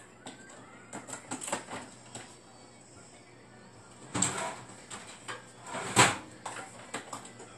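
Scattered short bumps and breaths from a person exercising, the loudest about four and six seconds in, with faint music behind.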